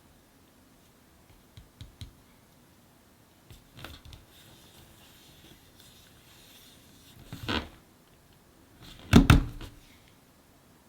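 Cardboard puzzle pieces handled and set down on a hard surface: scattered light clicks and taps, then a louder knock about seven and a half seconds in and the loudest knocks about nine seconds in.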